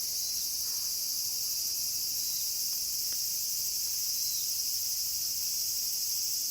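Steady high-pitched chorus of night insects such as crickets, trilling evenly without a break.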